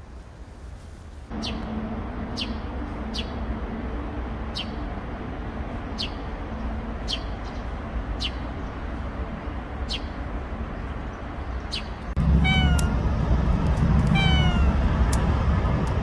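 Tabby-and-white cat meowing repeatedly in short, falling meows, starting about twelve seconds in. Before that there are only short high chirps about once a second over steady background noise.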